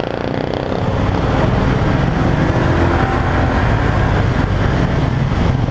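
Motorcycle engine running steadily while riding at speed, with wind noise over the microphone.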